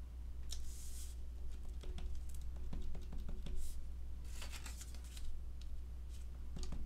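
Clear rubber stamp, plastic stamp sheet and acrylic stamping block handled on a craft table: several short rustling scrapes, with a few light plastic taps and clicks in the middle, as the stamp is set on the block and inked.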